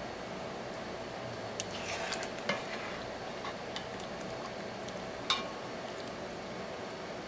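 Metal slotted spoon scooping a juicy shrimp filling out of a pan, with a few sharp clinks of the spoon against the pan, the loudest about five seconds in, over a steady hiss.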